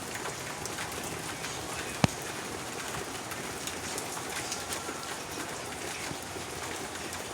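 Rain falling steadily and pattering on surfaces, with one sharp tap about two seconds in.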